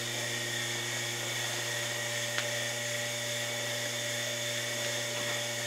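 Steady electric motor hum with a thin high whine, unchanging throughout, and one light click about two seconds in.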